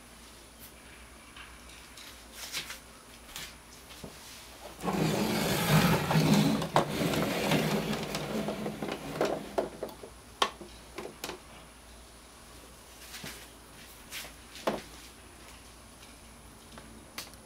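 Hard plastic toy storage case holding die-cast toy cars being folded shut and handled: about five seconds of plastic clattering and knocking, followed by a few separate sharp clicks.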